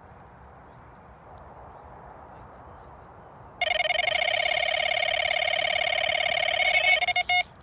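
Electronic carp bite alarm sounding a run. About three and a half seconds in, a loud, high warbling tone starts abruptly: the beeps come so fast that they run together as a fish takes line. It breaks into a few quick beeps and stops near the end, over a faint outdoor background hiss.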